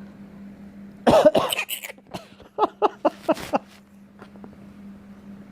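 A person coughing: a cluster of coughs about a second in, then a run of short, sharp coughs between about two and a half and three and a half seconds in.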